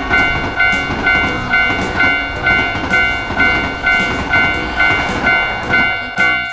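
Japanese railroad crossing warning bell ringing, about two dings a second, over the low rumble of a passing train. The bell stops near the end.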